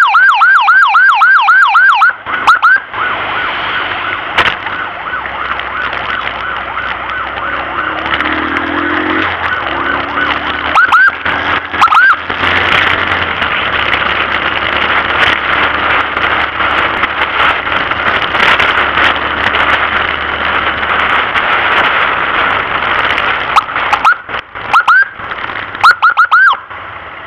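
Ambulance siren on a fast yelp, about five rising whoops a second, which cuts off about two seconds in. After that come steady road and traffic noise and a low engine hum, with single short siren whoops now and then and a quick cluster of whoops near the end.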